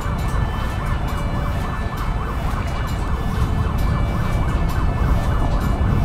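A siren wailing fast, its pitch rising and falling about four times a second, over a steady low rumble.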